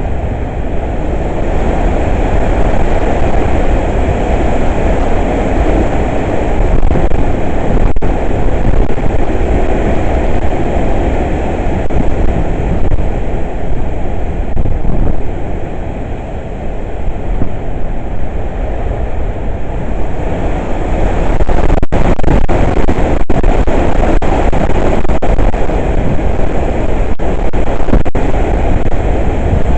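Hurricane wind blowing hard, a loud, dense rush with a deep rumble underneath, swelling and easing with the gusts. It eases briefly a little past halfway, then grows louder again about two-thirds of the way through.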